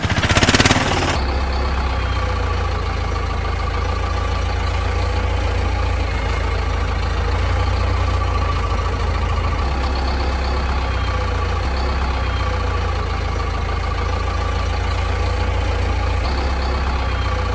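A vehicle engine idling steadily, a low rumble with a constant hum, after a brief loud rush of noise in the first second.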